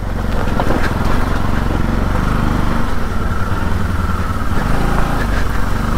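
Motorcycle engine running steadily as the bike is ridden over a rough, muddy, stony road, with a few light knocks.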